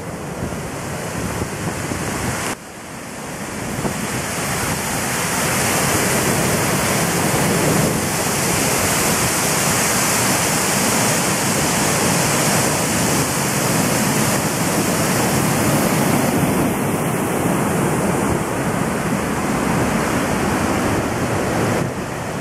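Floodwater pouring over canal lock gates, a loud continuous rush of water with some wind on the microphone. It drops suddenly about two and a half seconds in, then builds back up and holds steady.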